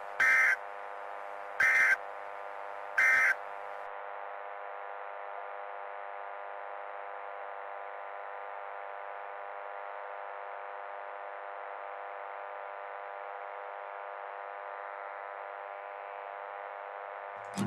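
Emergency Alert System end-of-message data bursts: three short, harsh digital warbles, each about half a second and a little over a second apart. Under and after them runs a steady buzzing drone.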